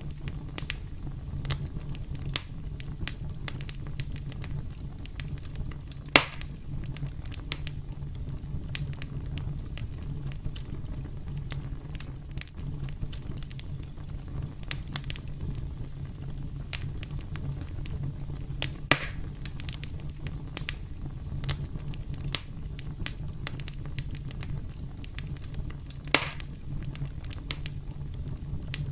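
Campfire burning with a steady low rumble and frequent small crackles. Three louder wood pops are spread through it.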